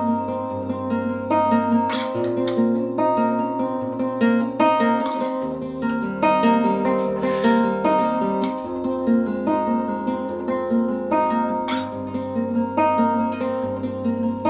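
Nylon-string classical guitar with a capo, fingerpicked in a steady pattern through a slow chord progression, the bass note changing every two to three seconds.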